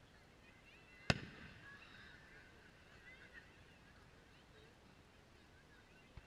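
A single sharp boom from a distant aerial firework shell bursting, about a second in, with a short echoing tail. A soft thump follows near the end.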